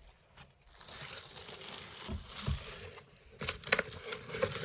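Packing material in a ceiling fan box being handled and crinkling, with a few sharp knocks and clicks near the end.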